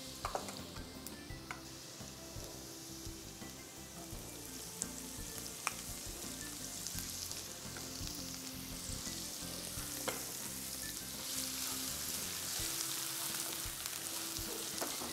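Chopped garlic, ginger and onion sizzling in hot oil in a frying pan while being stirred with a spatula, with a few sharp clicks. The sizzle grows louder in the last few seconds.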